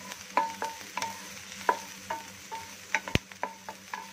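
A wooden spatula knocks and scrapes against a non-stick frying pan about three times a second as vegetables are stir-fried in ghee. Each stroke leaves a brief ring from the pan, over a faint sizzle. One sharper knock comes about three seconds in.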